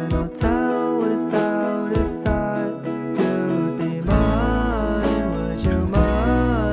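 Background song with acoustic guitar and a singing voice; a deep bass comes in about four seconds in.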